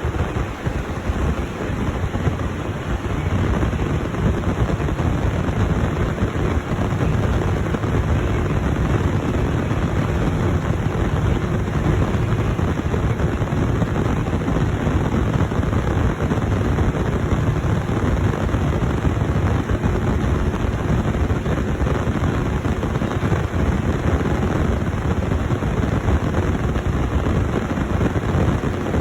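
Large diesel harvest machinery running steadily, a deep rumble with a faint constant hum.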